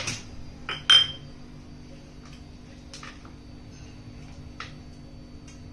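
Dishes clinking as food is set out: a few sharp clinks in the first second, one ringing briefly, then a few faint light taps.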